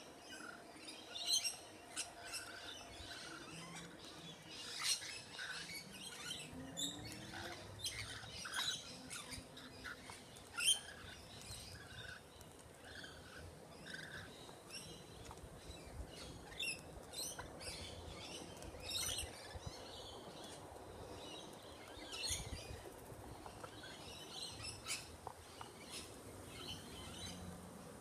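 Rainbow lorikeets chirping and chattering in short, high-pitched calls while they feed at a seed dish, with scattered sharp clicks among the calls.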